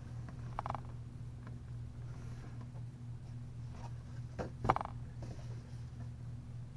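A plastic action figure and its diorama stand being handled, giving a few light knocks and clicks, the loudest about two-thirds of the way through, over a steady low hum.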